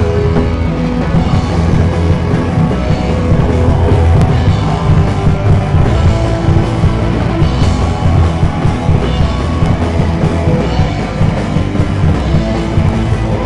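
Rock band playing a punk song live, with loud electric guitars, bass and drum kit going on without a break.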